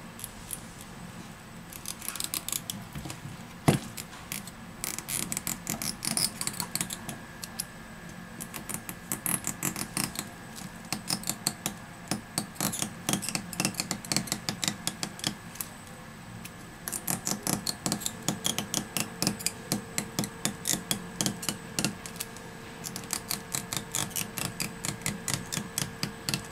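Battery adhesive pull strip on a Xiaomi Mi A1 being slowly stretched out from under the battery, crackling in long runs of quick little ticks as the glue lets go. One sharper click comes a few seconds in, and a faint steady hum joins about two-thirds of the way through.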